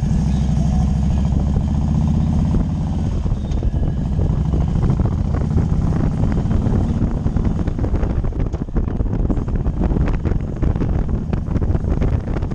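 Motorcycle engine running at a steady cruise, heard with wind buffeting on a helmet-mounted microphone. From about seven seconds in, the engine's steady drone sinks under gusty wind noise.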